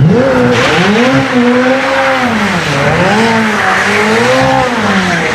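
Race car engine sound revving, its pitch rising and falling over and over, over a steady hiss.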